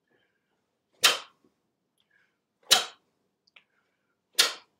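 Three sharp whooshing bursts, evenly spaced under two seconds apart, each cut in suddenly and fading fast: the sound of a martial artist's techniques as he steps back and blocks on each count of a taekwondo drill.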